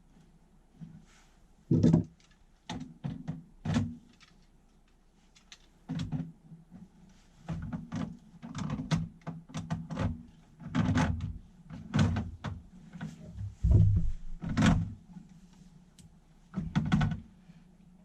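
Irregular knocks and thunks, a dozen or so over the stretch, from hands working with pipe, fittings and tools.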